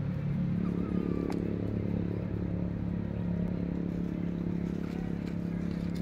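Steady low hum of an engine running, even and unchanging, with a few faint clicks over it.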